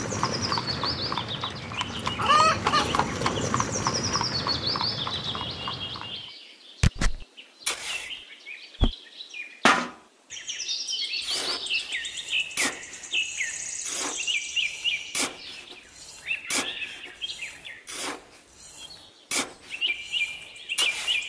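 Small birds chirping in repeated falling trills, over a dense steady noise that stops about six seconds in; after that, scattered sharp taps and clicks.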